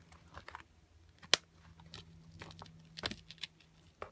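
Gold-tone metal chain straps of small handbags clinking and rattling as they are handled, in scattered light clicks, with one sharp click a little over a second in and a short cluster of clinks about three seconds in.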